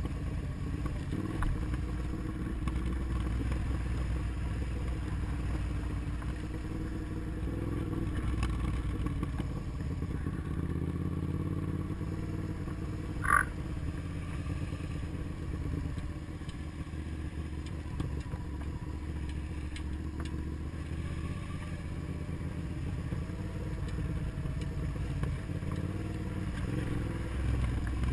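Motorcycle engine running steadily at low speed on a dirt road, heard from a helmet-mounted camera, with a dense low rumble. About halfway through, a brief sharp high squeak stands out above it.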